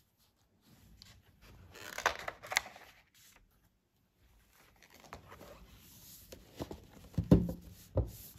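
A spiral-bound sketchbook being handled: a paper page turned with a quick swish and rustle about two seconds in, softer rustling of the pages later, then two dull knocks near the end as the book is moved on the desk.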